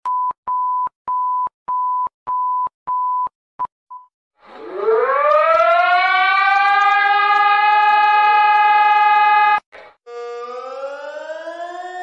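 Emergency alert alarm tones: a run of about seven short, even, high beeps over four seconds, then an electronic siren that rises in pitch and holds steady for about five seconds before cutting off. Near the end another siren starts, rising slowly.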